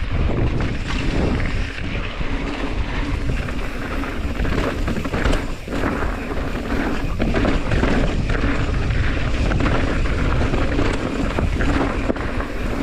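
Mountain bike rolling fast over rocky, gravelly singletrack: a steady rumble of wind on the microphone and tyres on dirt, with sharper knocks and clatter from the bike hitting rocks, several of them near the middle.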